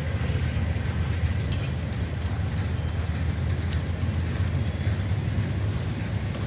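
Maintenance-of-way work train rolling by, a steady low rumble with a few short clicks.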